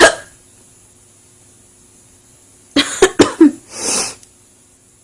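A woman's loud, sudden hiccup, then about three seconds later a quick run of three or four coughs ending in a breathy exhale.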